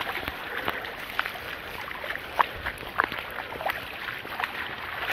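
Sneakered footsteps wading through ankle-deep floodwater, a splash with each step, roughly one or two a second, over a steady rush of flowing water.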